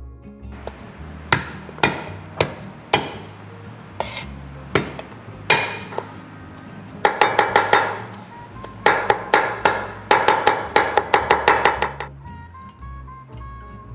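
Cleaver striking garlic on a wooden chopping board: a handful of single hard whacks as the cloves are smashed flat, then quick runs of chopping, about six chops a second, as the garlic is minced.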